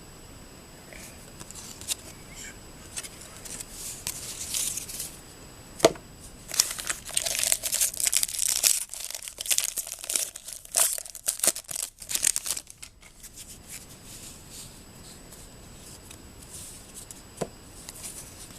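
Foil wrapper of a 2013 Topps Jumbo baseball card pack being torn open and crinkled by hand, with a dense run of tearing and crackling in the middle and light rustling of handling before and after.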